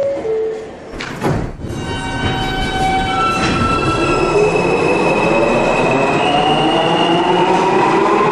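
R160 subway train leaving a station: a two-note falling door chime, the doors shutting with a thud about a second in, then the traction motors whining up in pitch as the train accelerates away.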